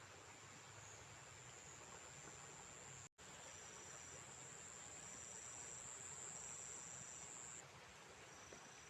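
Faint, steady, high-pitched insect trilling, with a second, slightly lower trill coming in and out in phrases of about a second. The sound cuts out for an instant about three seconds in.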